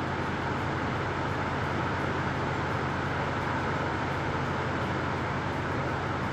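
Steady background hum and hiss with no distinct events, with a constant low tone underneath.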